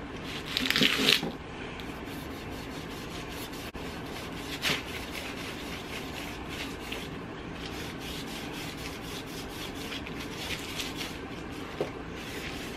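Fingers and a fingernail rubbing and scraping dried paint on a wooden picture mat, chipping it off to distress the finish. There is a louder scratchy burst in the first second or so, then fainter rubbing strokes with the odd short scratch.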